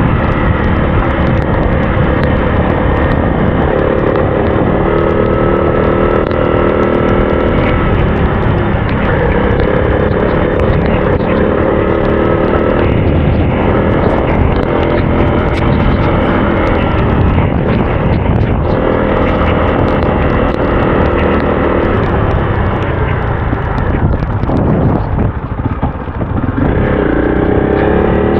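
Adventure motorcycle engine running while riding a country track, its revs rising and falling with the throttle over a steady rumble of wind and road noise. It eases off briefly about three-quarters of the way through, then picks up again with rising revs near the end.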